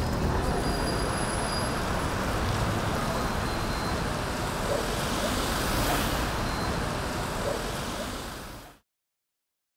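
Outdoor street ambience of a marching crowd: a steady noisy din with faint voices, fading out shortly before the end into silence.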